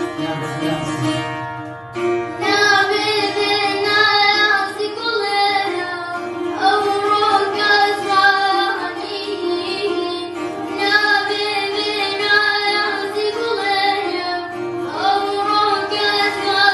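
A boy singing in Kurdish to the accompaniment of a long-necked plucked lute. His sung phrases come in three stretches, and the lute plays on beneath and between them.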